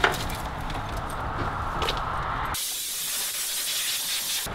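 Rough noisy clatter with a couple of sharp knocks from work in the engine bay, then, about two and a half seconds in, an abrupt switch to a steady high hiss of a spray wand spraying down the engine.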